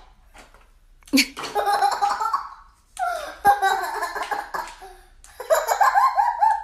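A person's voice in three bursts, the first starting about a second in.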